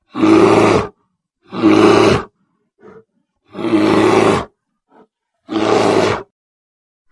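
Dubbed-in animal roar sound effect: four loud roars, each just under a second long and about two seconds apart, with two short faint grunts between them and dead silence in the gaps.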